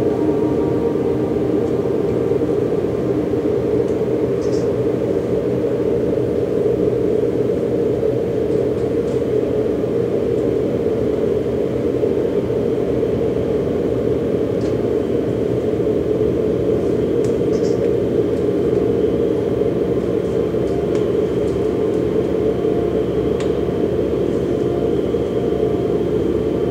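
Ambient drone soundtrack of a contemporary dance performance: a steady, dense low rumble with several held tones over it, unchanging throughout, with a few faint ticks.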